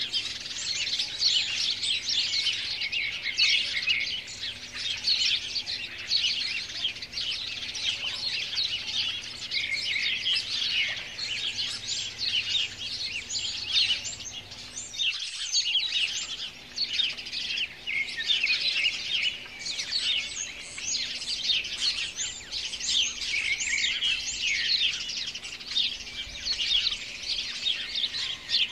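A dense chorus of many small birds chirping and twittering at once, without a break.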